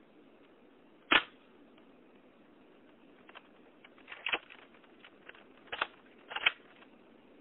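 A few sharp clicks and knocks over a low background hiss: a loud single one about a second in, then several more, some in quick pairs, in the second half.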